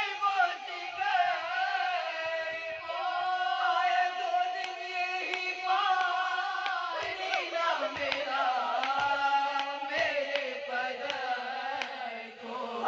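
A small group of women singing a marsiya, an Urdu elegy, together without instruments, a lead voice at the microphone with the others joining, in long held and gliding notes.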